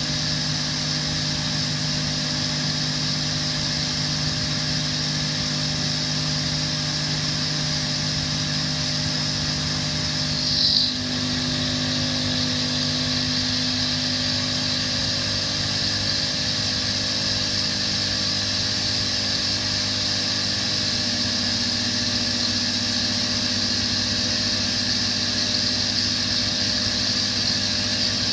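CNC stone router's spindle running with its bit cutting into a stone slab: a steady machine hum with a high whine over it. About eleven seconds in there is one brief, louder high-pitched burst.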